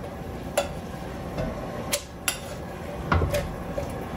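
Metal utensil clinking against an enameled Dutch oven while stirring ramen noodles in boiling water: four sharp clinks, two of them close together about two seconds in.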